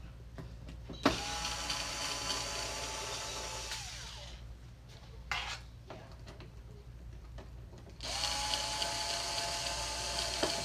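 Power screwdriver backing two screws out of a flat-screen TV's back cover: two runs of motor whine a few seconds apart, each dropping in pitch as it winds down.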